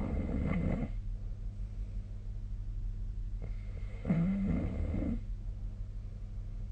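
A sleeping person snoring: one snore fading just under a second in, and another about four seconds in lasting about a second, over a steady low hum.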